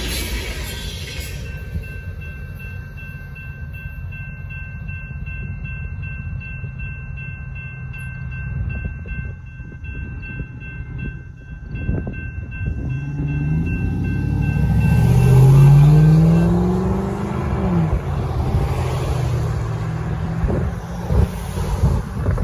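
Railroad crossing warning bell ringing steadily as the tail of a freight train of tank cars rolls clear; the bell stops about sixteen seconds in. Shortly before that, a car engine revs up with a rising note as the vehicle crosses the tracks, the loudest sound here, and other road vehicles follow.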